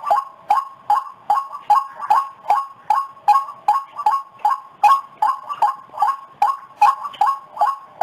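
White-breasted waterhen (ruak-ruak) calling: a monotonous, even series of short notes, about two and a half a second.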